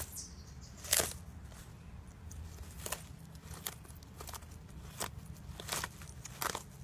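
Spur-thighed tortoise biting and tearing leafy greens: a run of crisp crunches and leaf rips, about six in all, the loudest about a second in.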